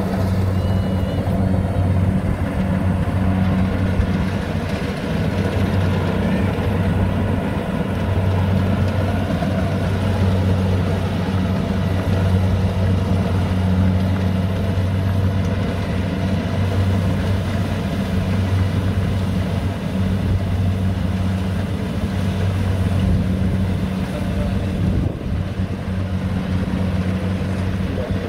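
Rice combine harvester's diesel engine running steadily, a continuous low drone over the clatter of the machine.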